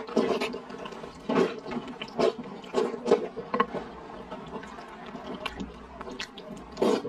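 Close-miked eating of thick rice noodles in mapo tofu sauce: a run of short, wet slurps and chews at irregular intervals, quieter for a couple of seconds past the middle, with one more loud slurp near the end.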